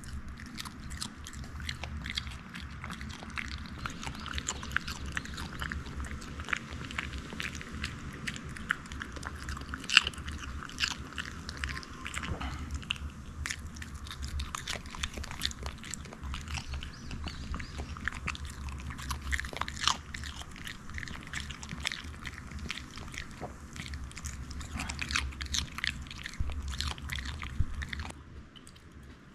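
Shih Tzu puppy crunching and chewing pieces of raw cucumber, a fast run of crisp, wet crunches that keeps going until about a second before the end.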